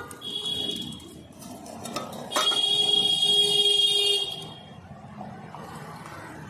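Vehicle horns sounding in street traffic: a short honk near the start, then a louder, longer honk of about two seconds from the middle, over steady street noise.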